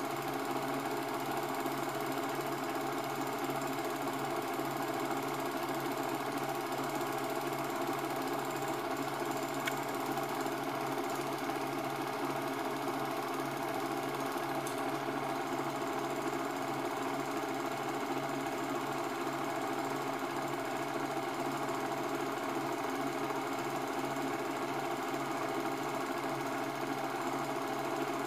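Cine film projector running, its film transport making a steady mechanical clatter that stays the same across the scene changes.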